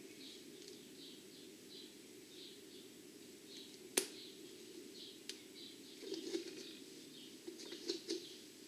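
Small birds chirping faintly and repeatedly in the background over a steady low hum, with a single sharp click about four seconds in and a few soft bumps near the end.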